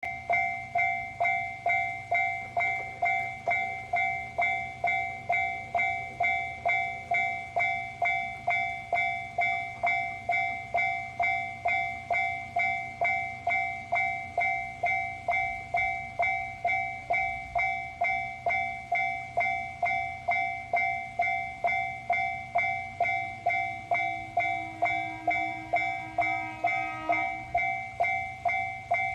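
Japanese railroad crossing alarm ringing its electronic "kan-kan" bell at a steady two strikes a second. Near the end a second, lower pitched tone sounds briefly over it.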